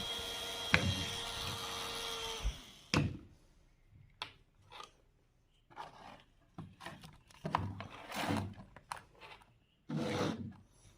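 Small electric mini fan running with a steady motor hum and whine, which stops about two and a half seconds in. A knock follows, then a few scattered clicks and rustles of handling.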